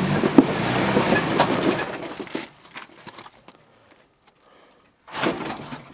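Off-road vehicle climbing a rock ledge: a loud, even rush with clatter and knocks from the tyres and the vehicle working on rock, which dies away about two and a half seconds in. A short noisy burst follows about five seconds in.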